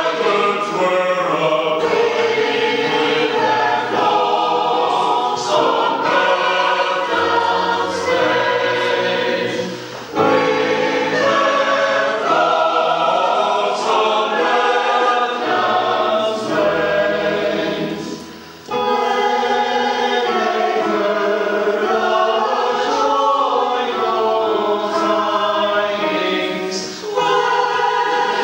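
A community choir singing a traditional chorus carol in parts. The singing breaks briefly between phrases, about ten, eighteen and twenty-seven seconds in.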